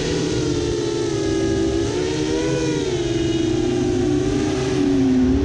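The motors and propellers of a 7-inch FPV quadcopter (Brotherhobby Avenger 2806.5 1300kv motors) whining, heard from its onboard GoPro. Several close pitches rise and fall together with the throttle, over a steady rush of air. The pitch dips about five seconds in, then climbs again.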